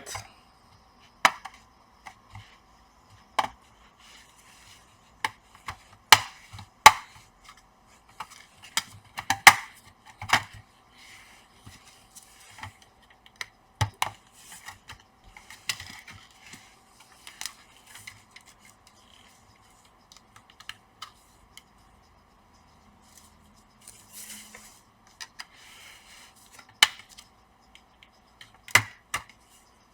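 Plastic latch clips of an Acer Nitro 5 laptop's bottom cover clicking and snapping loose as a thin opening tool pries along the seam, with scraping between the irregular sharp clicks.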